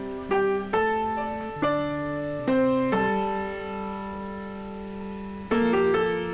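Background piano music: a slow run of single notes and chords, each struck and left to ring, with a long held chord in the middle and two new chords struck near the end.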